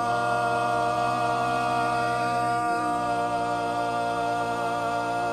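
Barbershop quartet singing a cappella, holding one long sustained chord on the final words of a ballad; one of the lower voices steps to a new note about two and a half seconds in.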